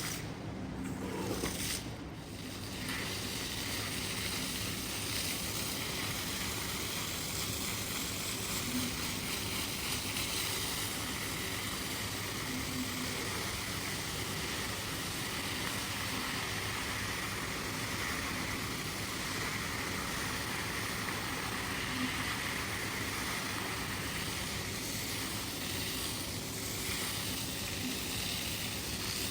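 A steady hiss that holds an even level, with no breaks.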